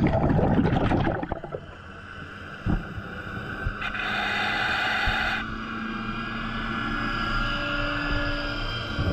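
Underwater on a scuba dive: a burst of bubbling from a diver's regulator exhaust for about the first second, then the steady hum and thin whine of a boat's motor and propeller carried through the water.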